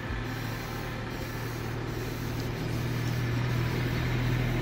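A motor vehicle's engine running with a steady low hum of unchanging pitch over a steady hiss, growing slightly louder toward the end.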